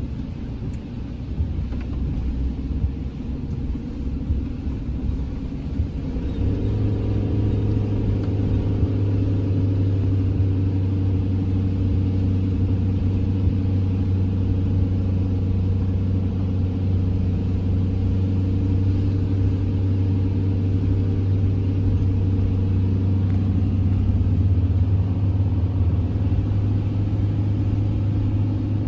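Campervan driving, with steady engine and road rumble. About six seconds in, a steady low drone sets in and holds.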